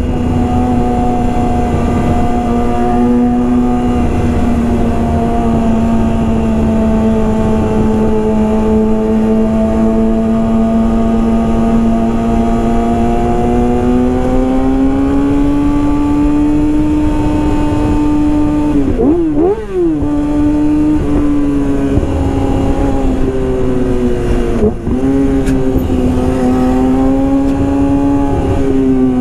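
Yamaha R6's inline-four engine running at high revs through a full Yoshimura exhaust system. The pitch holds steady, eases slightly, then climbs, with two brief dips and recoveries about two-thirds of the way through and again a few seconds later, like quick gear changes.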